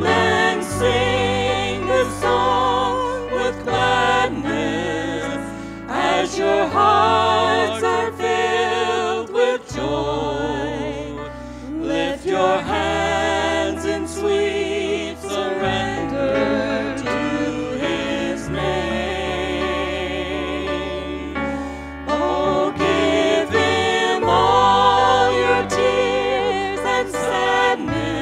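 Church worship band playing a gospel song: a man and a woman singing with vibrato over electric bass, keyboard and drums. The bass holds long low notes that change every couple of seconds.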